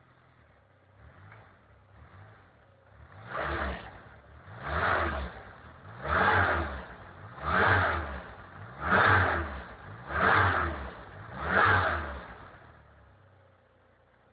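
Car engine, fed by low-impedance injectors on a MegaSquirt MS2 Plug'N Play ECU, revved in seven quick blips about a second and a half apart, after a few faint smaller blips. It drops back to a low idle near the end.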